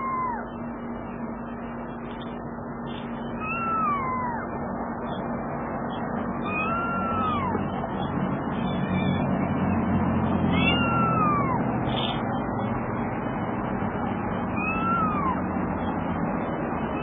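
Young kitten meowing: high calls that rise and then fall in pitch, about one every three to four seconds, four in all. This is a lone kitten's call for its mother.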